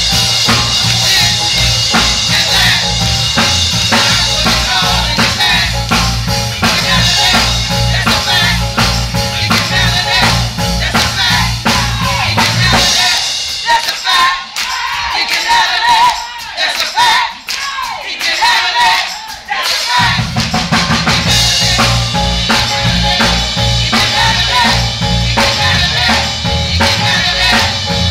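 Live gospel band music with drum kit, bass and singing. Midway the drums and bass drop out for several seconds, then the full band comes back in.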